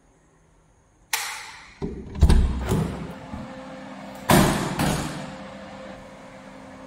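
A wooden door being handled: a sharp knock, then a run of heavy thuds and knocks, with two more strong bangs a couple of seconds later. A steady low hum sets in behind them.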